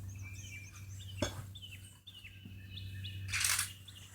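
Small birds chirping in quick, varied calls over a steady low hum, with a sharp click about a second in and a short, louder burst of hissing noise about three and a half seconds in.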